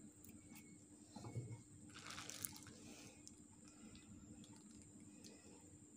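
Near silence: a plastic piping bag faintly rustling and squishing as cream is squeezed out of it, loudest about two seconds in, with a soft knock just before and a faint steady hum underneath.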